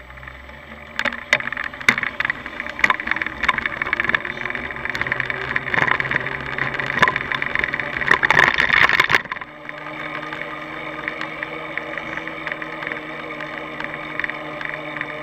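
Rattling and clicking from a bicycle in motion, heard through a camera mounted on the bike. About nine seconds in the clatter stops suddenly and a steadier hum takes over.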